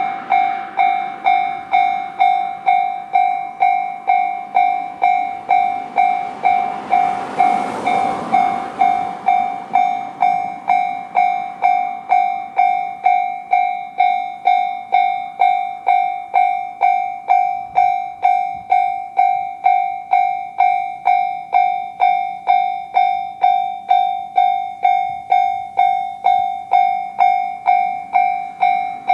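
Level-crossing warning bell in the JR standard electronic tone, ringing steadily at about one and a half dings a second. A train, an E129-series electric multiple unit, passes through the crossing, its noise swelling and peaking about eight seconds in while the bell keeps ringing.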